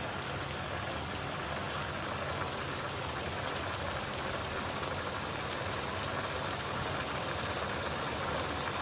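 Pan-fried fish simmering in sauce with tomatoes, chillies and scallions in a wok on an induction cooker: a steady bubbling sizzle, with a low hum underneath.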